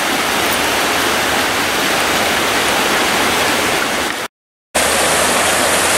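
Fast-moving floodwater rushing steadily. The sound cuts out for about half a second some four seconds in, then the rushing resumes.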